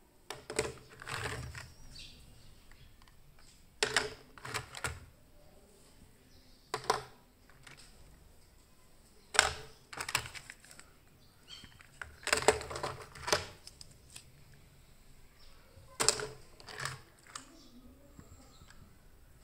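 Small plastic toy cars being set down one at a time on a hard surface, clicking and clattering against each other in short clusters about every three seconds.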